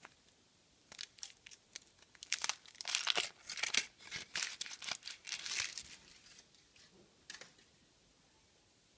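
Thin foil wrapper being peeled off a Kinder Surprise chocolate egg by hand: a run of crinkling, tearing crackles, densest in the middle, that thins out about six seconds in, with one last crackle near seven seconds.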